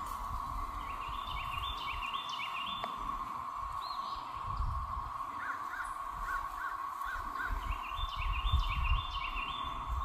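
A chorus of 13-year periodical cicadas of the Great Southern Brood droning steadily and without break. Songbirds call over it: a phrase of rising stepped notes twice, and a string of short chirps in between. Some low rumbles come through now and then.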